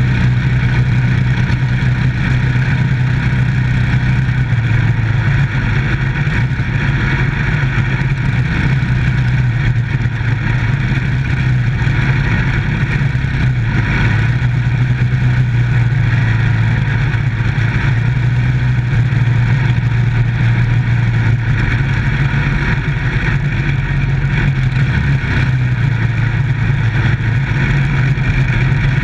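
Micro stock dirt track race car's engine running at speed, a loud, steady engine note heard from inside the car's cockpit over a constant rush of noise.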